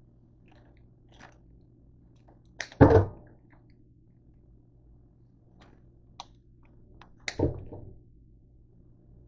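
Kitchen scissors snipping through the stems of a bunch of green grapes: two loud cuts about four and a half seconds apart, each a sharp click followed by a heavier, longer sound, with a few faint clicks of the blades between.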